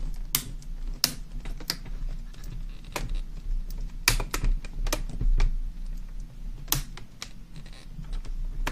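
Plastic hinge cover of a Dell Inspiron 1750 laptop being pressed and snapped into place: about ten irregular sharp plastic clicks and taps, a few close together around four seconds in.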